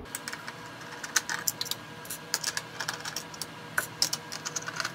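Screwdriver turning out screws in a UPS's sheet-metal chassis: a run of small, irregular metal clicks and ticks.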